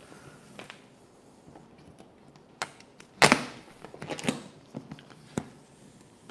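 Hands working an adhesive vinyl wrap sheet onto a mini fridge: a few sharp clicks and crinkling rustles, the loudest a little after three seconds in.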